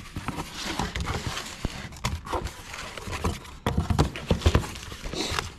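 Irregular knocks and clicks with rustling as a cardboard box and its packaging are handled and opened.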